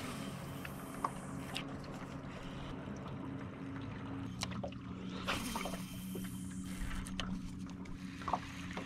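Jon boat motor humming steadily at low speed, its pitch shifting slightly a little before halfway. A few light clicks and taps are heard over it.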